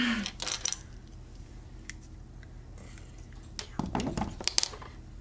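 Small hard objects clicking and clinking on a tabletop as nail-art supplies are handled: a few clicks about half a second in and a busier cluster around four seconds in.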